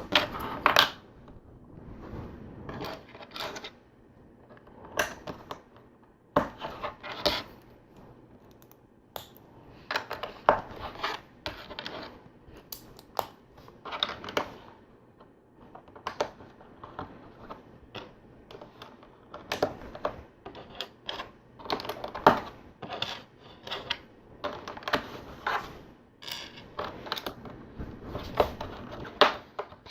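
Plastic LEGO bricks and plates clicking and clattering as loose pieces are picked from a pile and snapped together by hand, in irregular short clicks throughout.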